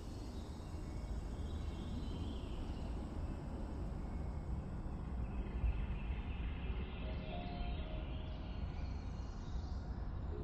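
Steady outdoor night ambience with a low rumble. Soft held notes of a film score come in about two-thirds of the way through.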